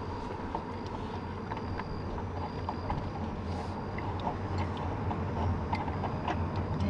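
Steady low engine and road rumble heard from inside a slowly moving car, with scattered small clicks and ticks over it.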